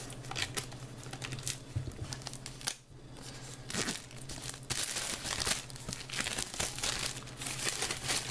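Clear plastic shrink-wrap being torn and peeled off a cardboard collector's box, crinkling and crackling, with a short lull about three seconds in and the busiest crinkling in the second half.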